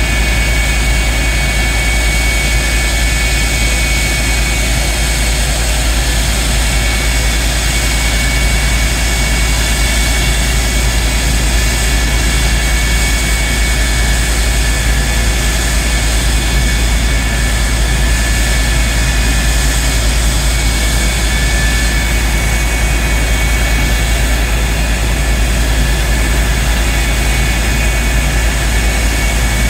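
CF-104D Starfighter's Orenda-built J79 turbojet running steadily on the ground: a loud, even rush with a high compressor whine over a deep rumble.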